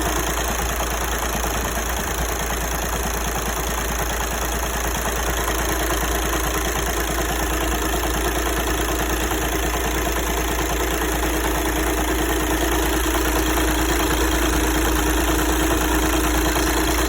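TDI turbo-diesel car engine idling steadily, making the abnormal engine noise that its owner wants diagnosed.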